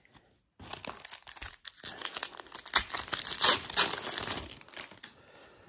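Foil wrapper of a 1991 Pro Set Platinum football card pack being torn open and crinkled by hand, a dense crackling that goes on for about four seconds and is loudest past the middle.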